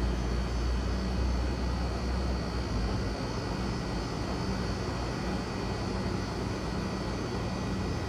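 A steady low mechanical drone with a faint hum. Its deepest part is strongest for the first couple of seconds, then eases a little.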